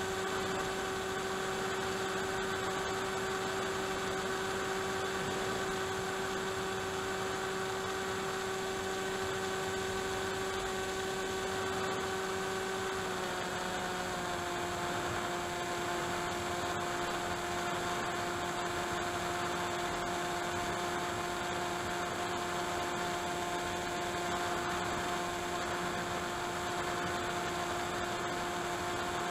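RC model aircraft's motor and propeller droning steadily in flight, heard from the aircraft's onboard camera with rushing air noise; the pitch drops slightly about halfway through as the throttle eases.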